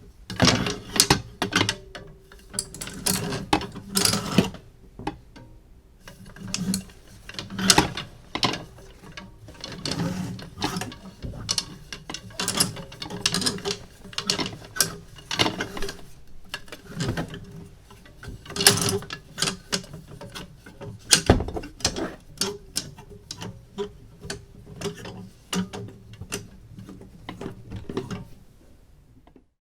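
Clothes hangers clicking and scraping along a closet rail as clothes are hung up and pushed aside, an irregular run of clacks and rattles with louder knocks now and then.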